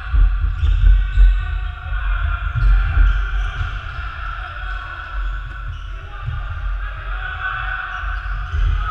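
Players' footsteps thudding irregularly on a wooden sports-hall floor, with voices calling across the hall.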